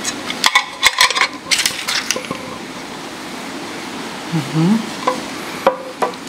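A hard plastic watch case and its lid being handled: a flurry of clicks and knocks in the first two seconds, then a couple of sharp taps near the end.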